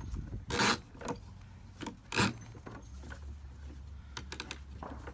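A rope ratchet tie-down being pulled tight: two quick pulls that zip the rope through the ratchet, then a few light clicks near the end.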